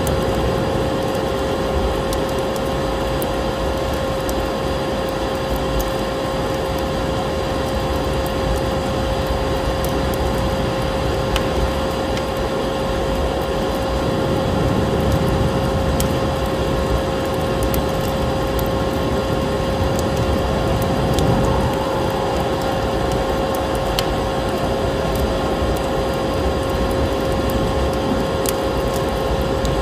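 Vacuum cleaner motor running steadily with a constant whine, over a crackling wood fire whose snaps come as scattered sharp clicks.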